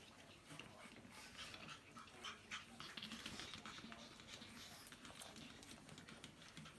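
Faint ticking and scuffling of a pug and her pug puppies moving about, many small irregular clicks from paws and claws, busiest through the middle.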